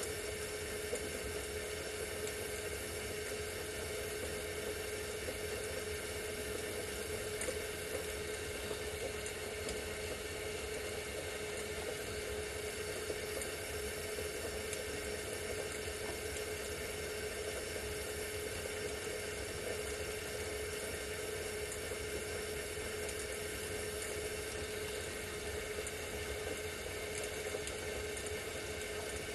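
Homemade glass lathe running: a steady hum with one constant tone and an even hiss as its chain-driven chucks turn a borosilicate glass tube.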